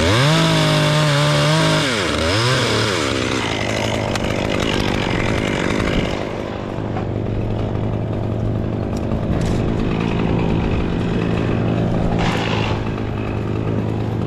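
Two-stroke chainsaw revved to full throttle for about two seconds, dropping back with a quick second blip, then running steadily at idle.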